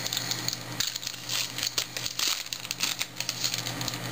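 Foil wrapper of a 2010 Bowman baseball card pack crinkling as it is torn open by hand, a dense run of crackles that is busiest in the middle.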